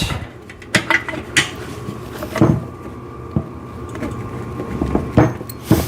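Scattered knocks and clatter of exercise-machine parts being handled, square plastic end caps being fitted into the steel frame's rectangular tubing, about six separate knocks.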